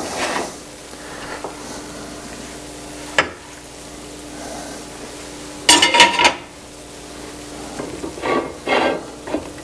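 Frying pan, silicone spatula and plate scraping and knocking as a cooked frittata is slid out of the pan onto the plate. There is a single knock about three seconds in and the loudest clatter about six seconds in, when the pan comes back onto the stove grate, with lighter scraping near the end.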